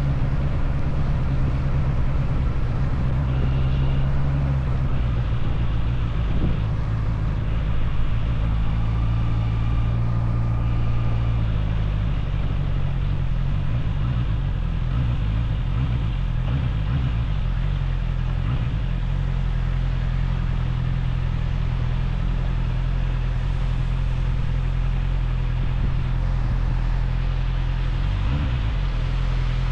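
Motorcycle engine running while riding, a steady low drone with wind and road noise. The engine note shifts a few times in the first dozen seconds, then holds steady.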